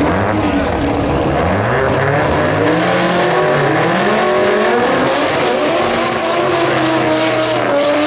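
Drag-racing car engine at full throttle, its pitch climbing and then dropping back several times as it accelerates down the strip.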